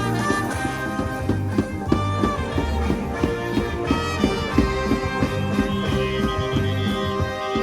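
A live band playing a tune over a steady drum beat and bass line, with melody instruments holding long notes.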